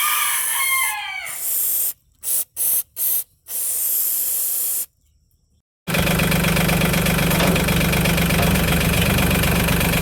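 An aerosol can of brake cleaner spraying in hisses: one long spray with a rooster crowing over it, then three short spurts and a longer spray. About six seconds in, the Mahindra 1626 tractor's diesel engine is suddenly heard, running steadily at idle.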